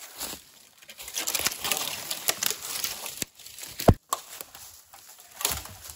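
Long dead branches dragged and carried over dry leaf litter and pine needles: irregular rustling, crackling twigs and footsteps. One loud thump about four seconds in.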